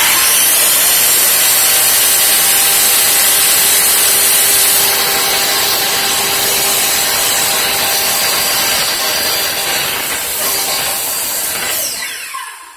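Corded circular saw, mounted in an EZ Smart track-saw base, running at full speed and cutting along the track through the base's plastic zero-clearance insert, trimming it to the blade. It starts abruptly, runs steadily, then is switched off near the end and winds down with a falling whine.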